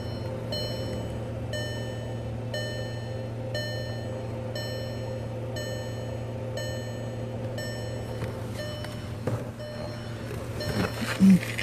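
2009 Volkswagen Passat's dashboard warning chime, ringing about once a second and stopping about eight seconds in, over a steady low hum. A few knocks and clunks follow near the end.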